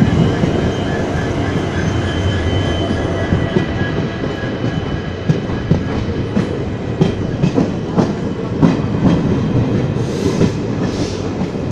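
Train running alongside a line of diesel locomotives, with the locomotives' steady hum heard in the first few seconds. After that comes the rhythmic clickety-clack of wheels over rail joints as it passes the goods wagons. Two brief rushes of hiss come near the end.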